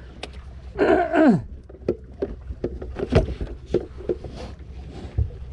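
Irregular knocks and taps on a wooden boat deck while a freshly caught fish is handled, over a low steady hum. About a second in, a short human call slides down in pitch.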